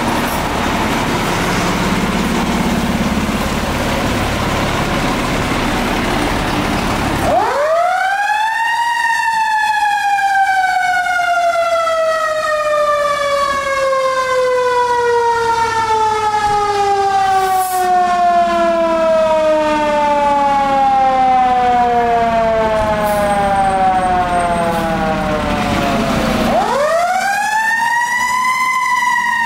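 For the first seven seconds a heavy fire engine's diesel engine runs with a steady rumble. Then the Federal Signal Q mechanical siren on a 2023 Seagrave pumper winds up quickly to a high peak and coasts down slowly in one long falling tone over about eighteen seconds, before winding up again near the end.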